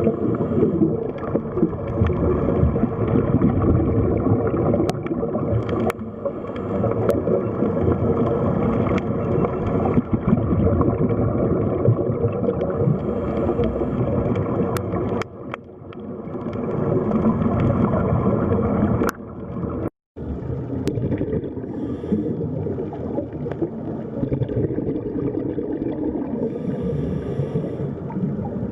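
An added water sound effect: a steady wash of water noise, processed for 8D panning, that briefly drops away about 15 seconds in and cuts out for an instant about 20 seconds in.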